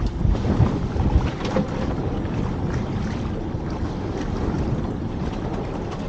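Wind rumbling on the microphone over a choppy sea around a small open boat, with the strongest gusts in the first second or so.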